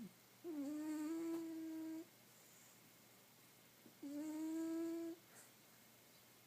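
Cat snoring: two drawn-out, hum-like snores about three and a half seconds apart, each dipping briefly in pitch and then holding one steady tone.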